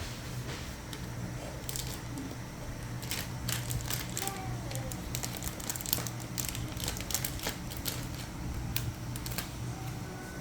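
Plastic sticker packaging crinkling and crackling as it is handled and opened, in irregular crackles that start about two seconds in, over a steady low hum.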